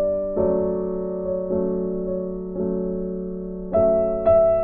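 Background piano music: slow chords struck about once a second, each ringing out and fading before the next.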